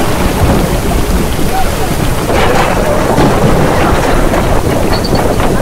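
Loud, continuous storm noise on a sailing yacht: strong wind blasting across the microphone together with the rush of breaking waves and spray on a rough sea.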